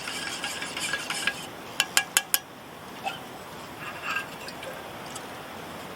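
Making a cup of coffee: liquid poured and stirred in a mug for about a second and a half, then a spoon clinking against the mug four times in quick succession about two seconds in, with a few fainter clinks later.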